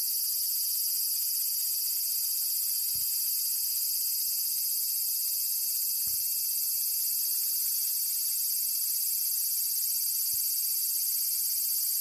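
Cicadas singing close by: a steady, high-pitched buzzing drone without a break.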